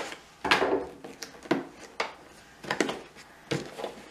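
Cardboard product box being handled and opened on a table: irregular knocks and scrapes, the loudest about half a second in.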